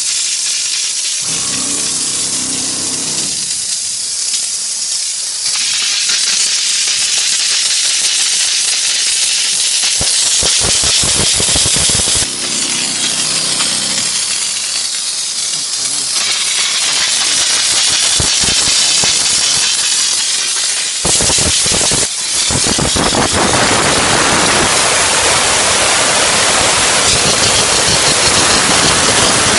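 Steam hissing steadily from the nozzle of an LPG-fired mobile steam car wash machine's steam gun as the jet is sprayed onto concrete and along a car door. The hiss grows louder and fuller part-way through, with a couple of brief dips.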